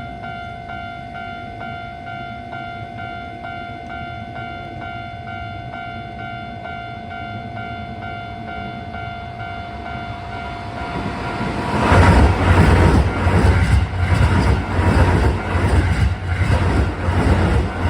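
Japanese level-crossing warning bell ringing steadily in an even repeating pattern. From about eleven seconds a Keisei electric train passes close by at speed: a loud rumble with a rhythmic clatter of wheels over rail joints that drowns out the bell.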